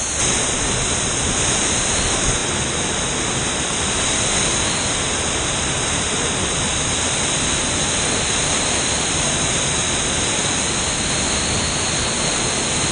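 Steady roar of rushing water from a swollen canyon river and its waterfalls.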